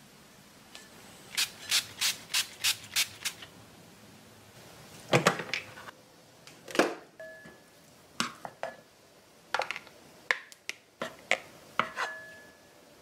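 Plastic rice paddle knocking and scraping against a rice cooker's inner pot as cooked rice is fluffed and scooped out: a quick run of about six sharp taps, then scattered heavier knocks and scrapes.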